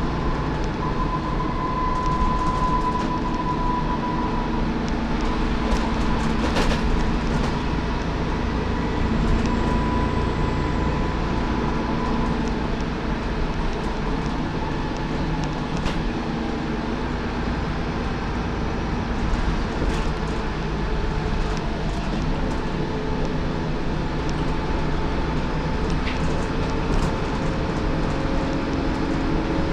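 Dennis Trident 2 double-decker bus under way, heard from the upper deck: a steady engine and road rumble with scattered rattles and clicks from the body and fittings. A thin high whine comes and goes in the first dozen seconds.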